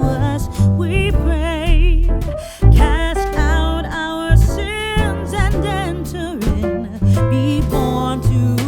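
Background music: a song with a singing voice over guitar and a steady bass line.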